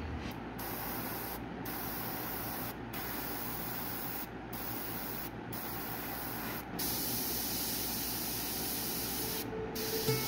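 Gravity-feed airbrush spraying paint onto a wooden lure in short passes: a steady hiss that cuts out briefly about seven times as the trigger is let off and pressed again, getting a little louder about two-thirds of the way through.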